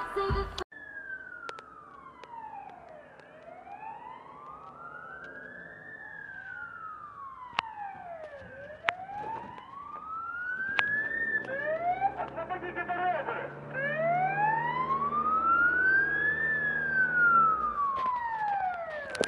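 Emergency-vehicle siren in a slow wail, its pitch rising and falling about every five seconds and growing louder in the second half. A few sharp clicks and a low steady hum come in under it around the middle.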